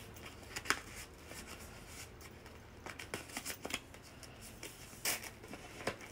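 A stiff paper card and tissue paper being handled: scattered light rustles and taps, the loudest about five seconds in.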